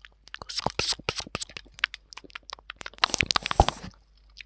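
Close-up ASMR mouth sounds for a pretend eating roleplay: quick wet clicks and crunchy, chewing-like noises into the microphone, thickest and loudest about three seconds in.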